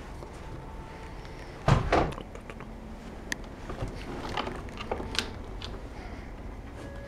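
A loud thump a little under two seconds in, then scattered light clicks and rustles, from a cat playing with a wand toy.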